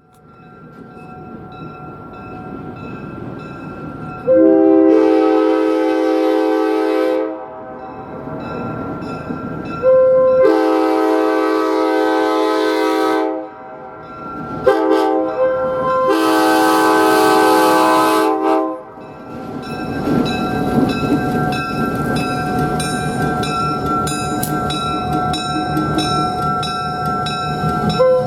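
Locomotive's five-chime K5LA air horn sounding the grade-crossing signal (long, long, short, long) as the train approaches, then the train rolling past with wheel clicks on the rail joints.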